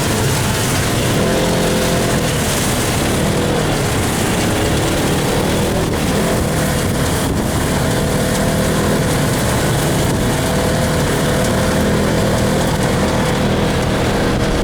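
Polaris RZR side-by-side's engine running steadily as it drives, its pitch wavering a little, over rough ride and wind noise.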